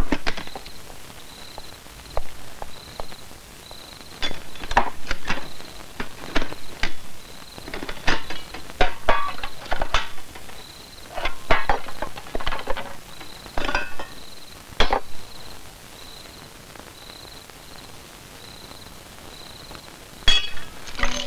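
A stainless-steel tiffin carrier being unstacked and opened: scattered metal clinks and clanks of the containers, their lids and the carrier's wire handle. A faint, regular high chirp runs underneath.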